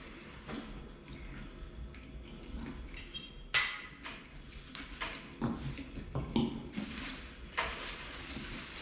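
A metal fork clinking and scraping on a plate while eating, with the loudest, briefly ringing clink about three and a half seconds in. Near the end a paper napkin rustles as it is handled.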